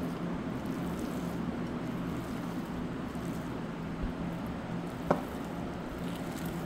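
A hand squishing and kneading raw chicken mince with gram flour, egg and spices in a glass bowl, over a steady low hum. A sharp click about five seconds in.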